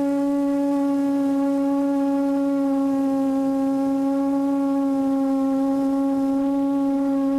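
Electric motors and 8-inch propellers of a QAV400 quadcopter humming steadily in a hover, heard from the camera on board. It is one even drone with a clear, constant pitch.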